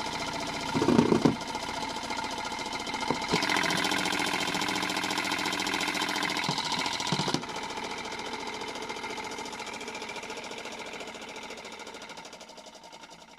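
Modified Beko toy washing machine with new suspension doing an unbalanced spin: its small motor whines steadily while the off-balance drum knocks loudly about a second in and rattles harder for a few seconds in the middle. The sound fades gradually over the last few seconds.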